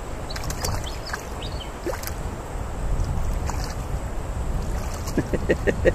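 Shallow river water splashing and trickling around a wading angler's hands as he handles a small rainbow trout at the surface, with a few small splashes over a low rumble.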